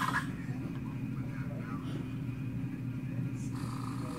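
Steady low hum with faint, muffled voices in the background.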